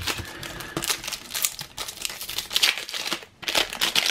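Topps Cricket Attax trading-card pack wrapper crinkling and being torn open by hand, a dense run of crackles with a short pause a little past three seconds in.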